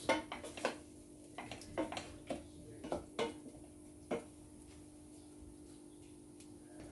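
Spatula knocking and scraping against a stainless steel saucepan as squid stir-fry is stirred, a scatter of light taps through the first four seconds. After that only a faint steady hum remains.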